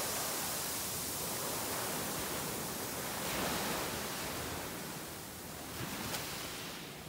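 Small waves breaking and washing up a sandy beach: a steady hiss of surf that swells about three and a half seconds in and then eases.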